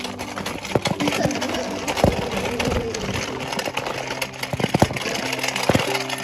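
Footsteps crunching on a gravel path, irregular clicks over a constant gritty hiss, with background music of low held notes that change pitch in steps.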